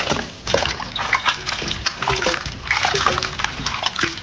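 Hands washing raw chicken feet in water in a stainless steel bowl: water sloshing and splashing in irregular bursts, with short clicks as the feet are rubbed and turned over.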